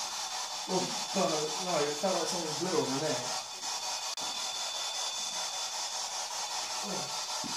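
Steady background hiss, with a low, indistinct voice murmuring from about one to three seconds in.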